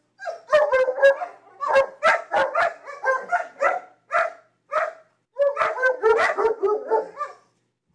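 Husky-type dogs play-fighting, barking and yipping in quick short bursts, with two brief pauses about four and five seconds in.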